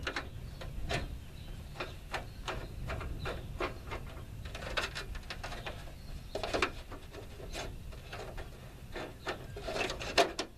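A hand screwdriver driving a screw into the headlamp trim of a 1986 Ford F-150, with irregular scraping and clicking of metal on metal as the screw is turned.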